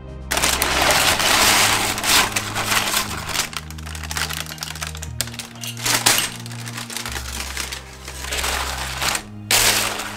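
Crisp oven-baked potato chips and baking paper crackling and rustling as the chips are lifted and handled, with clicky clatters of chip against chip. Background music with a steady bass line plays underneath.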